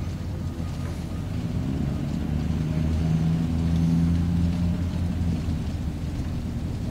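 Low engine rumble with a steady hum that swells from about two seconds in and eases off again near the end.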